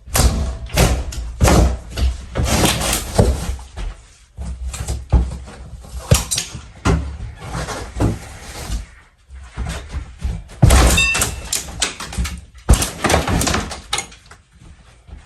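Interior demolition in a mobile home: a dense run of knocks, bangs and crashes as walls and drywall are pried, broken and torn out, busiest in the first half and again for a few seconds near the end.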